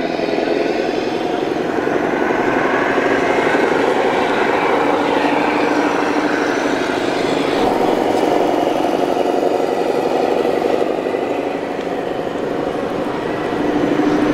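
Radio-controlled Freightliner Cascadia model truck's sound module playing a truck engine running steadily.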